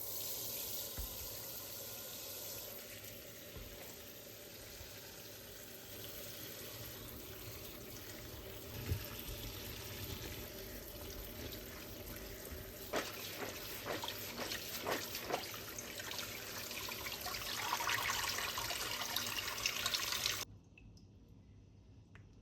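Water running from a tap into a sink, with a few sharp knocks and clatters a little past halfway, and the flow cutting off suddenly near the end.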